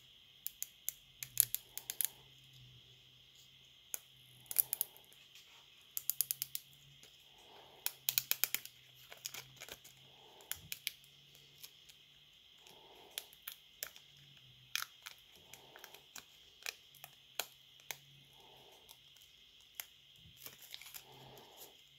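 Light, irregular clicks and crackles in small clusters as a glass touch digitizer and a metal-framed display are handled and fitted together by hand with a pointed tool. Soft breathing comes every second or two over a faint steady hum.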